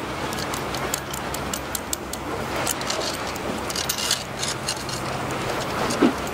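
Light, irregular clicking and tapping of fishing tackle being handled, a spinning reel and rod being fitted together, over a steady wash of wind and sea. One duller knock comes near the end.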